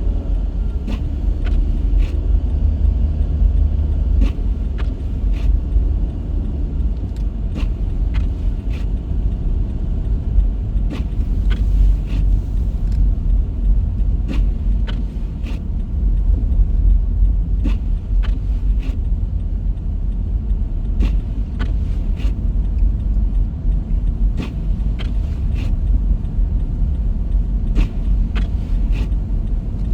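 Car driving on the road, heard from inside the cabin: a steady low rumble of engine and tyre noise, with scattered small clicks and rattles.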